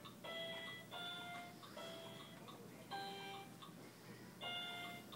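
Electronic letter-learning toy playing a slow tune of beeping electronic notes, each held about half a second with short gaps between them.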